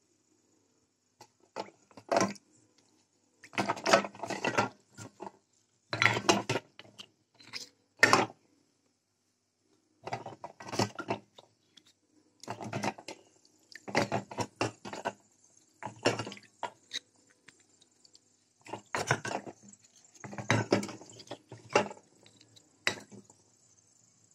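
Wet clay diyas being handled in a steel bowl of water: short, irregular bursts of clay clinking and scraping against the steel, with sloshing and dripping water, and a sharp click near the end.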